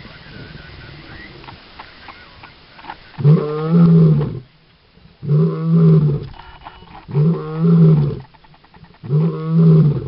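A lion roaring: four long, deep roars about two seconds apart, starting about three seconds in.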